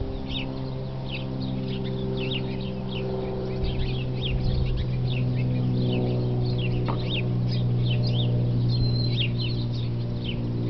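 Many small birds chirping quickly and without a break, short high notes overlapping, over a steady low drone of held tones that shift now and then.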